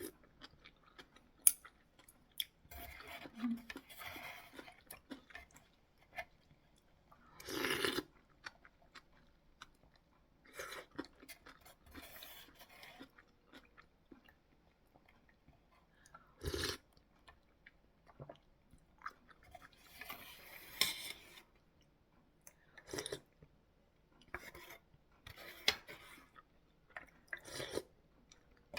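Close-up eating sounds of instant beef ramen with radish kimchi: intermittent chewing and crunching in short bursts, with scattered sharp clicks.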